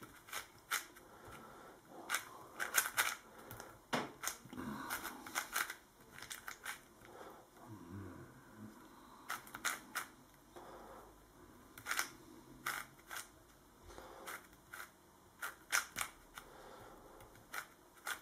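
YongJun MGC magnetic 4x4 speed cube being turned by hand: irregular quick plastic clicks and clacks as its layers are turned and snap into place, some single, some in fast clusters, while its centres are being solved.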